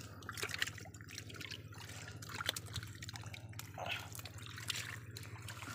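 Shallow muddy stream water splashing and dripping in short, irregular bursts as hands and a scoop net work through it, groping for small fish.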